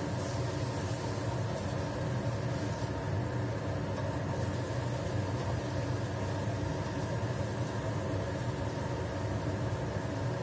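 Kitchen range-hood exhaust fan running with a steady low hum.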